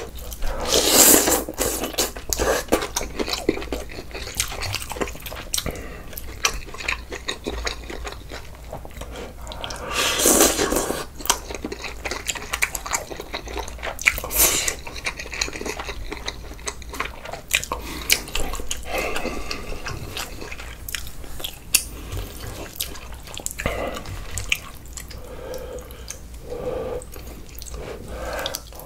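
A person eating close to the microphone: wet chewing and smacking with occasional louder slurps, from bulgogi hot pot with glass noodles and kimchi.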